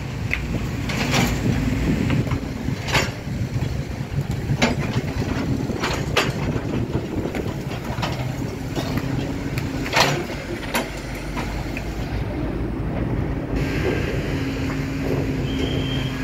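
Mini excavator's diesel engine running steadily, with sharp metal knocks every second or two as it digs and loads soil, the loudest about ten seconds in.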